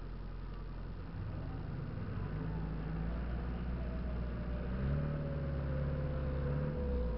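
Off-road vehicle engine pulling under load during a vehicle recovery. Its note rises about a second in and steps up again near five seconds, with a thin whine falling slowly in pitch, then it eases off near the end.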